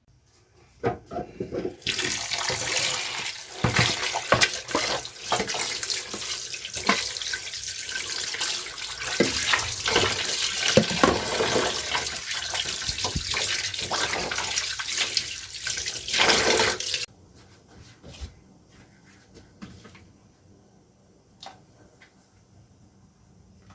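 Kitchen tap running into a sink, with knocks and clatter of things handled under the stream; the water is shut off abruptly about three quarters of the way through, leaving a few faint clicks.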